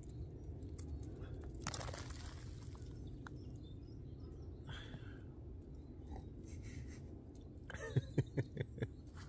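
A man slurps a sip from a mug about two seconds in, then gives a short chuckle of several quick pulses near the end. Both are faint over a low steady background hiss.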